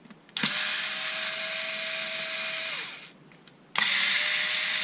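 Cordless electric screwdriver running on its lowest torque setting, backing out case screws easily. It runs in two steady spells of about two seconds each with a whine; the first winds down and stops, and after a short pause it starts again.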